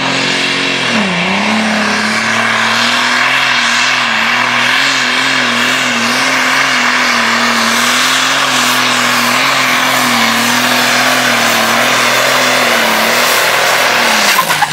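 Pulling tractor's diesel engine at full throttle hauling the weight sled: the revs dip and recover about a second in, then hold high with a slight waver, and fall away near the end as the pull finishes.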